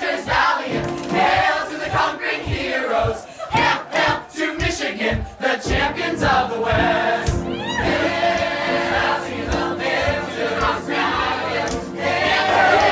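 A large crowd of voices singing together, with sharp hits or claps throughout.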